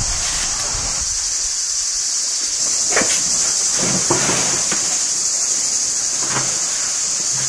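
Steady high-pitched insect chorus shrilling in the background. A few soft swishes of fabric about three, four and six seconds in, as a large cloth is shaken out and spread over a wooden table.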